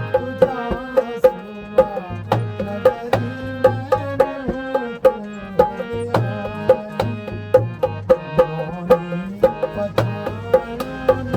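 Music with a quick, steady hand-drum beat under a pitched melody that slides between notes.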